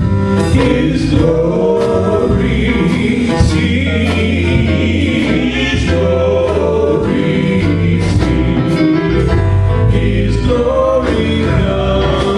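Gospel worship song: a group of voices singing over a full band with a heavy bass line.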